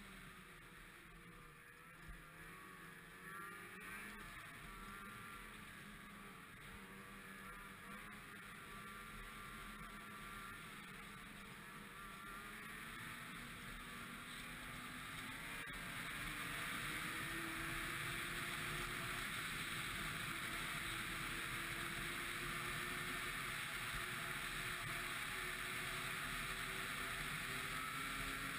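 Ski-Doo MXZ 600 X-RS snowmobile engine running under way, its pitch wavering up and down, then rising and getting louder about halfway through and holding steady.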